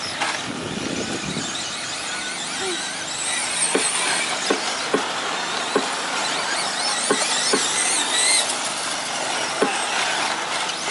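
Radio-controlled short-course race trucks' motors whining high, the pitch rising and falling with throttle as they race over a dirt track. Several sharp knocks come through the middle as the trucks land and bounce.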